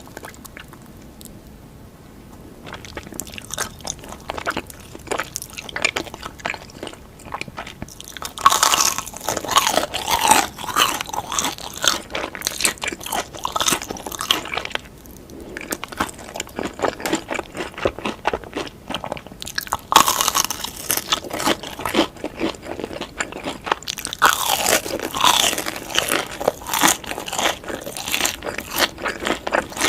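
Close-miked biting and chewing of crunchy cheese fingers, a dense crackling crunch. It starts quiet and comes in several louder spells of crunching.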